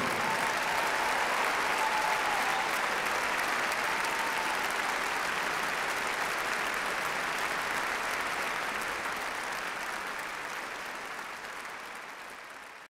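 Large concert audience applauding, the clapping slowly fading and then cutting off abruptly near the end.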